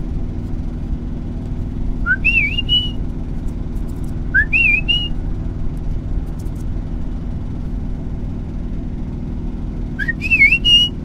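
A man whistling a signal call three times. Each call is about a second long: a short rising note, then a higher wavering note that settles on a held high note. A steady low hum runs underneath.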